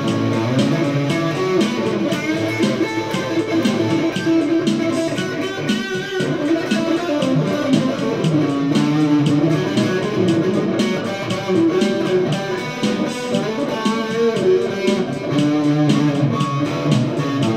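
Electric guitar played through an amplifier: a continuous run of picked notes and chords, with a brief dip about six seconds in.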